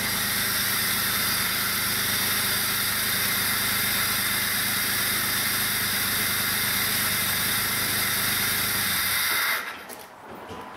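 A 2004 Jeep Grand Cherokee's 4.0-litre six-cylinder engine idling steadily, with a constant hiss over it. About nine seconds in it is switched off, and the sound dies away quickly.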